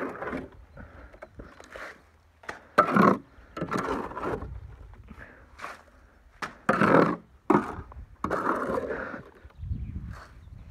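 Hand tools scraping and scuffing in soil and stone, in uneven rough bursts about once a second.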